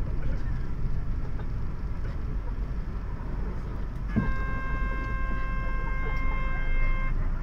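Highway bus interior with the engine idling in a steady low rumble while stopped. About four seconds in there is a thump, then a steady buzzer tone for about three seconds that cuts off sharply.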